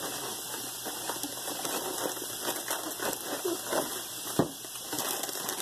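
A wire whisk stirring pudding mixture in a stainless steel bowl, its wires clicking and scraping against the metal in quick, uneven ticks. One louder knock comes about four seconds in.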